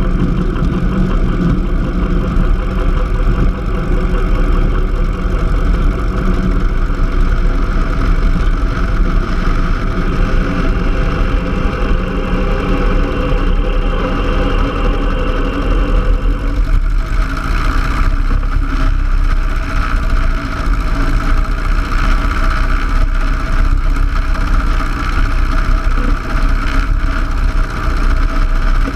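Cessna 150's Continental O-200 four-cylinder engine and propeller running steadily at low power on the ground. About 17 seconds in, the tone changes and a higher hiss comes up.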